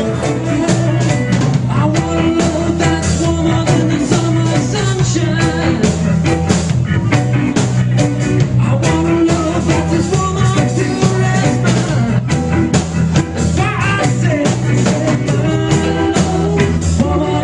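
A rock band playing live, with electric guitars, bass and drums keeping a steady beat, and a voice singing over it.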